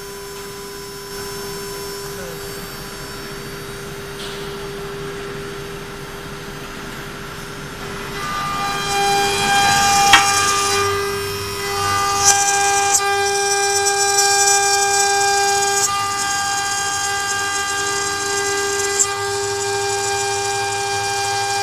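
CNC router spindle with an end mill cutting an aluminium plate. A steady spindle whine is joined about eight seconds in by a louder, high-pitched ringing screech of the cutter in the metal, with a sharp click near the middle.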